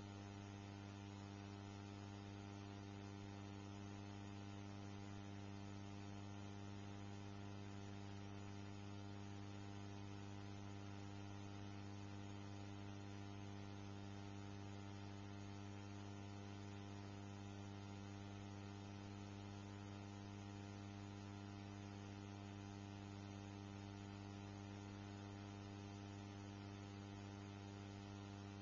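Steady electrical mains hum, a low buzz with a stack of even overtones over a faint hiss, unchanging throughout.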